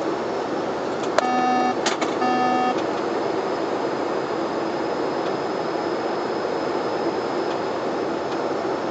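Steady cockpit noise of a Bombardier Dash 8-400's Pratt & Whitney PW150A turboprops and airflow on final approach. About a second in, two short electronic beeps sound from the cockpit with a click between them, and a faint high-pitched whine comes in a little later.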